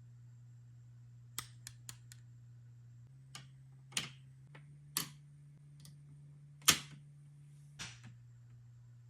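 Small hard plastic toy pieces clicking and tapping as they are handled and set down: about a dozen separate sharp knocks, a quick run of four in the second second, the loudest about two-thirds of the way in, over a low steady hum.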